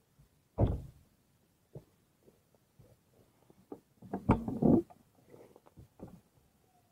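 Irregular knocks and thumps: one heavy thump about half a second in, scattered light clicks, then a cluster of knocks around four seconds in.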